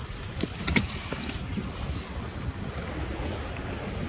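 Wind rumbling on the phone microphone, with a few sharp clicks and knocks in the first second.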